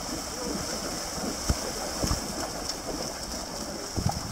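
Steady outdoor noise, wind buffeting the camera microphone, with a high hiss and a few low thumps about a second and a half, two and four seconds in.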